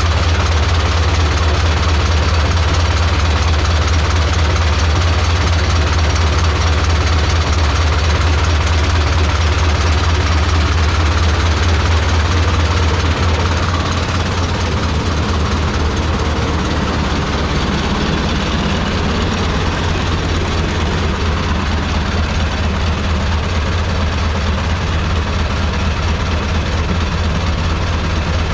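1910 Aultman-Taylor 30-60 tractor's big engine running steadily under belt load, driving a sawmill, with a fast, hard, even firing beat. The level drops slightly about halfway through.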